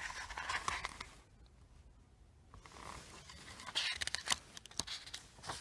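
Pages of a paper book being handled and turned: soft paper rustling with small sharp clicks and taps. There is a near-silent pause of about a second and a half shortly after the start.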